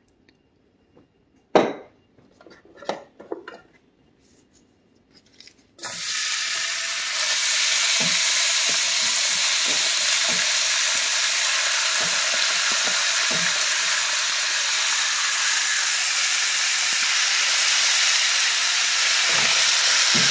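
Cubed raw chicken breast hitting a preheated skillet of olive oil: a loud sizzle starts suddenly about six seconds in and carries on steadily, with light taps and scrapes of a spatula pushing the pieces in and spreading them. Before that, only a few brief knocks and clinks.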